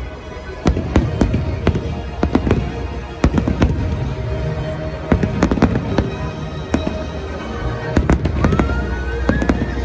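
Aerial fireworks display: shells bursting in many sharp, irregular bangs and crackles over a steady low rumble, with music playing underneath.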